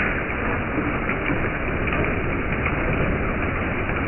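Hail and rain falling steadily: a continuous, dense rush with a strong low end and no single hits standing out.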